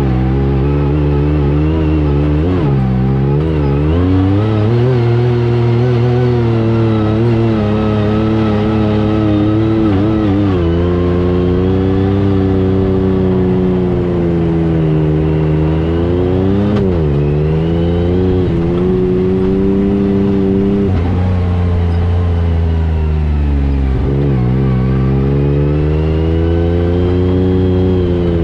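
Yamaha YXZ1000R's three-cylinder engine running under load, its pitch rising and falling with the throttle and dipping sharply a few times.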